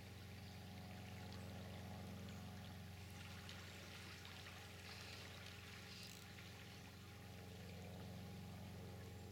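Faint steady rush of flowing river water, with a low steady hum underneath.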